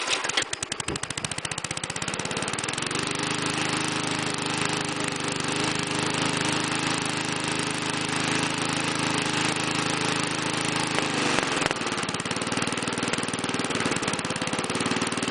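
Rally 20-inch push mower's 3.75 hp engine just started on the first pull in the cold, running unevenly for the first few seconds, then settling into a steady run.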